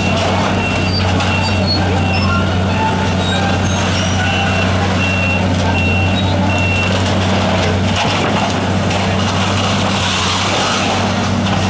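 Diesel engine of a Caterpillar 330B demolition excavator running steadily under load as its grapple tears at the building. A backup alarm beeps repeatedly, about twice a second, for the first several seconds and again near the end.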